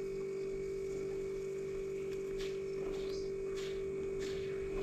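Steady electrical hum, one pitched tone with fainter steady tones below and above it, with a few faint ticks about halfway through.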